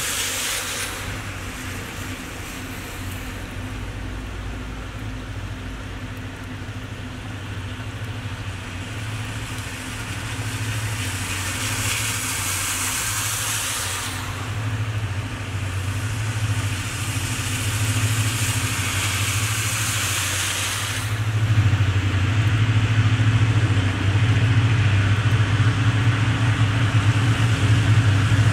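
Hitachi diesel-electric locomotive running as it approaches slowly, its steady low engine drone growing louder about two-thirds of the way through. A high hiss comes and goes over it.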